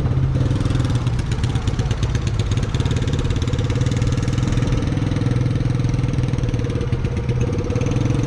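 Small engine running steadily at an even, low speed close by, with a fast, even firing beat.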